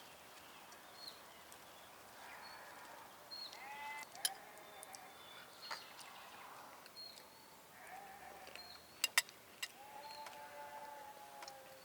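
Sheep bleating: several short calls, then a longer one near the end, with a few sharp clicks between them.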